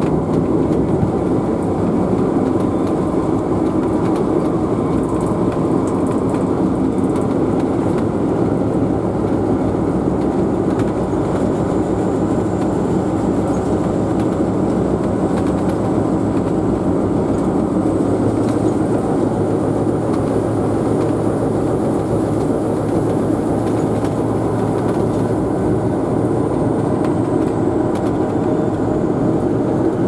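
Alco WDM-3D diesel locomotive's 16-cylinder Alco 251 engine running steadily under way, heard inside the cab as a loud, even rumble.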